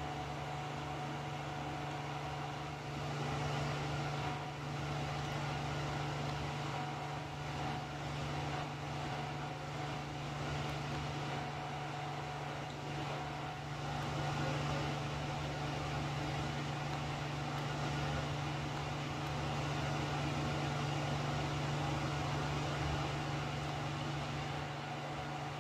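A steady mechanical hum with a strong low tone and an even hiss throughout, with no distinct clock ticks standing out.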